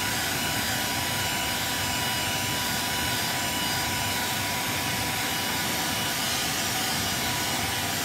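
Hand-held hair dryer running steadily at close range: a constant rush of blown air with a faint steady whine.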